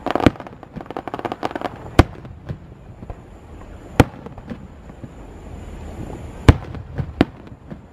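Aerial firework shells bursting overhead: sharp bangs roughly every two seconds, with a run of crackling pops in the first two seconds.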